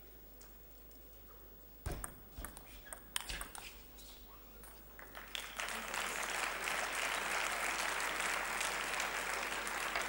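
Table tennis ball clicking off bats and table in a quick rally, then audience applause that swells from about halfway through and carries on.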